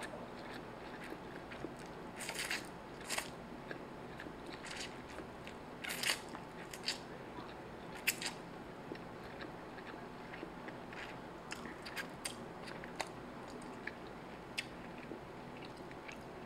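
Close-up eating of instant fried noodles: slurps as strands are sucked in, with chewing and short wet mouth clicks. The louder slurps and smacks come a few seconds apart in the first half, then only soft scattered clicks.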